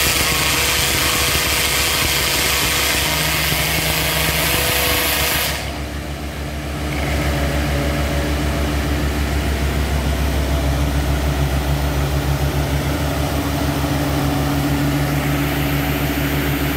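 PRD RC500 crawler drilling rig and its air compressor running steadily, with a loud hiss over the engine note. The hiss drops away suddenly about five and a half seconds in and builds back over the next second or so, after which the engine note pulses evenly.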